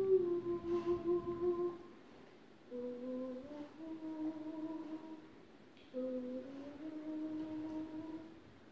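A woman humming a slow lullaby: long held notes in three phrases, with short pauses between them.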